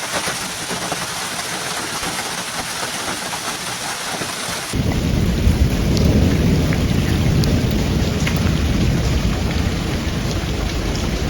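Heavy rain pouring steadily. About five seconds in, the sound cuts to louder storm footage where a deep, continuous rumble sits under the rain, with a few sharp ticks of drops striking.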